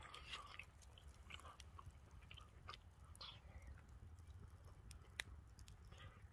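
Faint chewing of a mouthful of food, with soft scattered mouth clicks and one sharper click about five seconds in.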